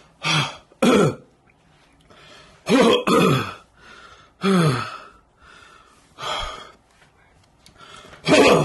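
A man groaning and gasping in pain from the burn of an extremely hot chili chip: a series of short, strained groans that fall in pitch, with hard breaths between them.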